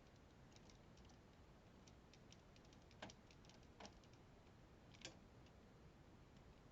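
Near silence with faint, scattered light clicks and ticks. Three slightly louder clicks come about three, four and five seconds in.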